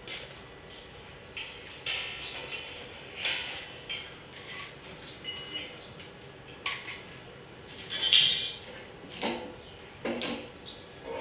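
Square steel tubing of a welded bed frame being handled and shifted: irregular knocks, scrapes and short squeaks of metal, the loudest about eight seconds in.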